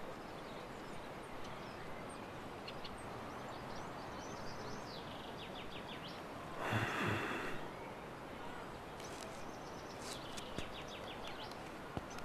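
Quiet outdoor ambience: a steady background hiss with small birds chirping now and then, and a brief louder rush of noise about seven seconds in.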